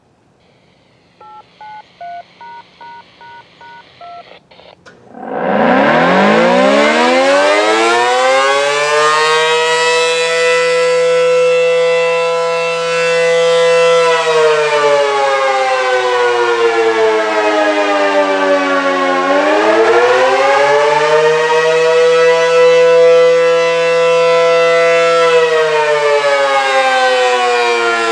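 A quick string of faint two-tone electronic beeps, then an ACA P-10 'Penetrator' dual-tone outdoor warning siren (500/667 Hz chord) starting about five seconds in. It winds up to full pitch, holds, winds down and winds up again on its attack signal, with its pitch falling once more near the end.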